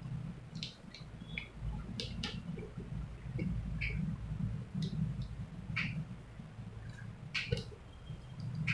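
Irregular short clicks and snaps during a chiropractic lower-back treatment, a dozen or so, the sharpest about two-thirds of the way through, over a low rumble of movement on the treatment table.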